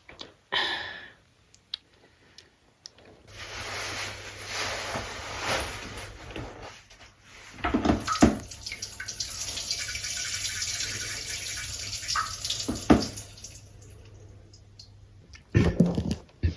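A stream of liquid running and splashing for about twelve seconds, starting a few seconds in, with a low hum beneath it and two sharp knocks along the way.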